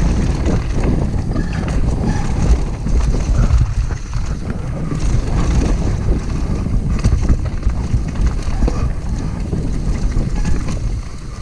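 Wind buffeting a helmet-mounted action camera's microphone over the rumble of a downhill mountain bike's tyres on a dry dirt trail at speed, with rattles of the bike over rough ground.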